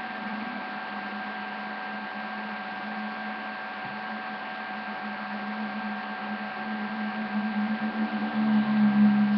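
Steady electrical hum and hiss from a webcam's built-in microphone, with thin constant tones. A low hum swells louder in the last couple of seconds.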